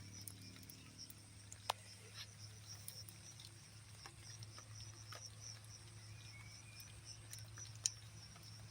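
Light rain dripping: scattered faint taps of drops, with two sharper taps, one about two seconds in and one near the end, over a faint, steady high-pitched buzz.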